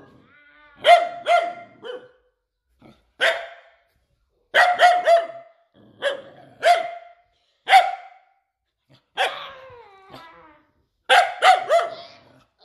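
Husky puppy barking protectively in short, high, pitched barks that come in groups of one to three, with one longer call falling in pitch about nine seconds in.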